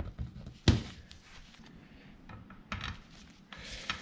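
Gloved hands fitting a bolt through a greased, freshly bushed sway bar link: rubbing and scraping of the parts, with one sharp click about two-thirds of a second in and a few more short scrapes near the end.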